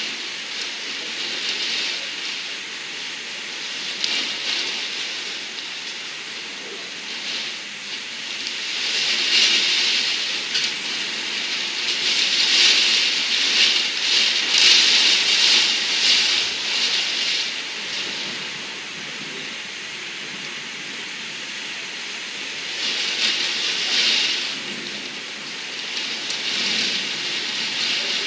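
Heavy wind-driven downburst rain beating against window glass: a dense steady hiss that surges louder in gusts, longest for several seconds about a third of the way in and again briefly near the end.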